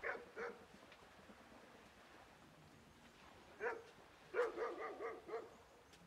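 A dog barking: two short barks at the start, one more midway, then a quick run of about five.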